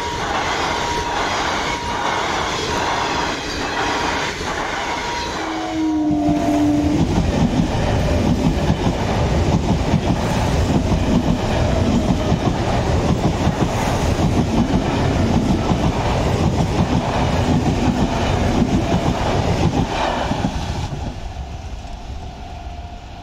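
Passenger coaches of an Intercity Express rolling past a level crossing, with a rhythmic clickety-clack of wheels over rail joints and a thin steady squeal. About six seconds in there is a brief horn. A Medha EMU then passes close with a louder, heavier rumble and wheel clatter, which fades near the end.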